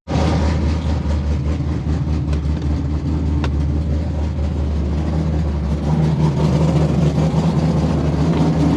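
LS3 V8 in a Nissan 350Z idling steadily, a little louder about six seconds in. It has an exhaust leak at the header, which the owner puts down to a blown header gasket.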